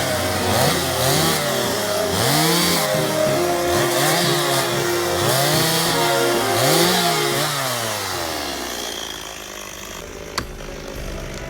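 Chainsaw revved up and down in short bursts, roughly once a second, the way a saw is blipped while cutting branches. Near the end the engine sound fades away, and a single sharp knock comes about ten seconds in.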